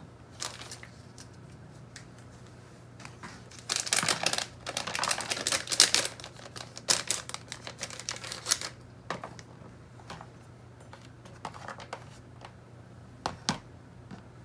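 Small plastic bag of a brake caliper rebuild kit crinkling and rustling as it is opened and emptied, for about five seconds in the middle. A few light clicks of small parts being handled follow.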